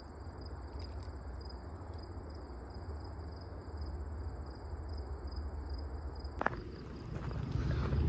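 Insects chirping in woodland: a steady high trill with a second chirp pulsing about two or three times a second, over a low background hum. Near the end, after a sudden click, a low rumble starts to build.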